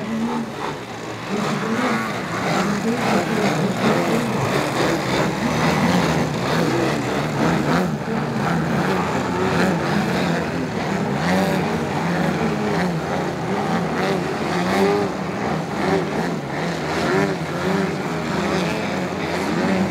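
Engines of several radio-controlled 3D aerobatic model aeroplanes flying together, their propeller pitch continually rising and falling as the throttles are worked through the manoeuvres, the tones overlapping.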